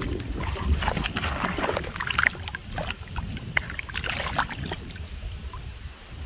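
Shallow river water splashing and sloshing around a hand, in a run of quick splashes from about half a second in until about four and a half seconds, over a low wind rumble on the microphone.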